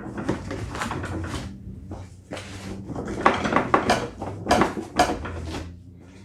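Irregular metallic clattering and knocking as tools and the cover panels of a snow thrower are handled and taken off, with a run of louder knocks about three to five and a half seconds in.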